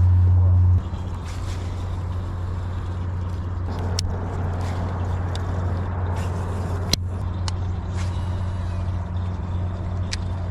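A boat motor runs with a steady low hum that drops in level about a second in. A few sharp clicks come through over it, the loudest about seven seconds in.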